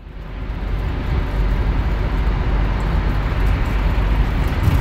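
Camper van on the move: a steady low rumble of road and engine noise, fading in over the first half second.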